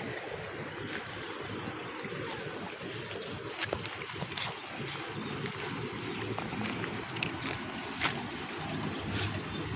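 Steady rushing of muddy water flowing along a full irrigation channel. A few short knocks sound over it.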